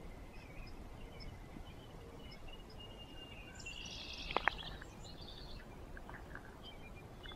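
Quiet outdoor ambience with birds chirping faintly and intermittently, busiest a little before the middle. Two sharp clicks close together a little past the middle stand out as the loudest sounds.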